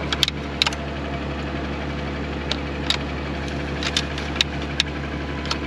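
Tractor engine running steadily at idle with the planter's air blower going, and a scattering of short sharp clicks and taps over it.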